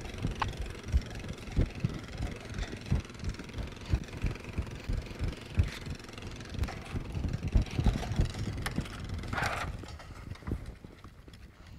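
Four-wheeler (ATV) engine running at low speed as it tows a Heel-O-Matic heel-roping dummy, with many irregular low thumps over it.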